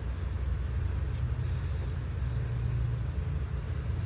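A steady low hum of running machinery, with even background noise over it.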